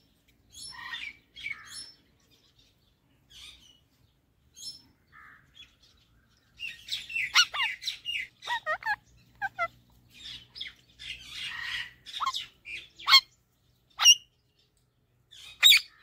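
Male rose-ringed (Indian ringneck) parakeet calling: scattered short chirps, then a busy run of chattering calls in the middle, and a few sharp, loud squawks near the end.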